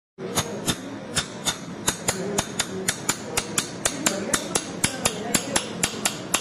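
Surgical bone chisel struck repeatedly with a mallet, a rapid run of sharp taps about four a second, as the chisel is driven into the jaw bone to split the lingual cortex around an impacted lower wisdom tooth.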